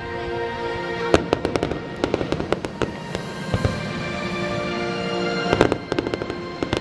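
Fireworks display: clusters of rapid sharp cracks and bangs from the shells and fountains, with a low thump in the middle, over steady music.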